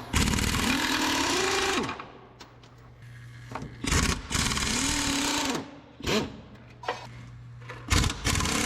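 An impact wrench runs in bursts, two of them one to two seconds long and then two short ones, backing out the bolts around the bottom of a tractor transfer case. Its pitch rises as it spins up in each burst. A low steady hum fills the gaps between bursts.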